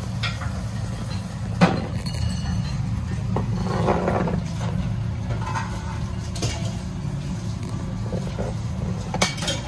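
Ramen shop ambience: a steady low hum with a few sharp clinks and knocks of tableware, and faint voices in the background.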